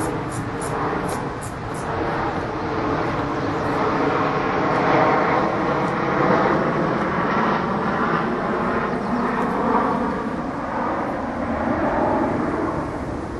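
Steady engine rumble that swells about four seconds in, holds, and eases near the end. A row of quick high chirps repeats through the first second or so.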